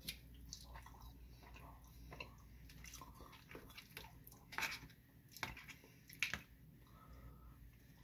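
A person chewing and biting fries close to the microphone: soft wet mouth noises, with a few sharper smacks and clicks a little past the middle.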